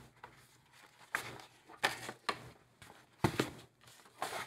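A hardcover journal being handled on a desk and slid out of its printed paper sleeve: about five soft taps and bumps with paper rustling, the loudest a little past three seconds in.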